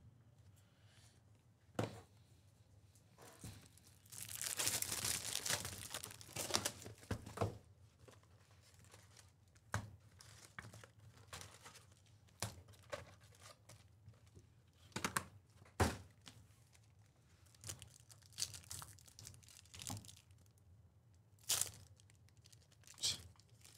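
Wrapping and foil packs of Donruss Optic basketball cards being torn open: a long stretch of tearing and crinkling about four seconds in, then scattered crinkles and several sharp snaps.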